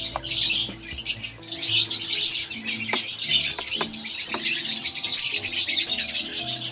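Many small birds chirping and twittering continuously in a dense, high chatter, with a few sharp clicks in between.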